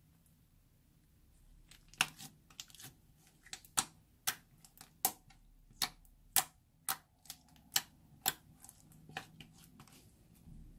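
Clear slime being squeezed and worked by hand, its trapped air pockets popping in sharp, irregular clicks about two a second, starting about two seconds in and thinning out near the end.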